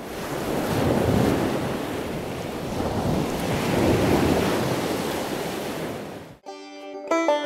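Steady rushing noise, like surf or wind, swelling and easing. It cuts off sharply about six seconds in, when plucked-string music begins.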